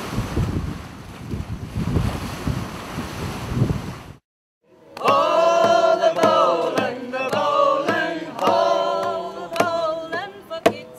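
Strong wind buffeting the microphone over the rush of the sea, cut off suddenly about four seconds in. After a short gap, a group of people sing together in chorus, with sharp knocks or claps among the voices.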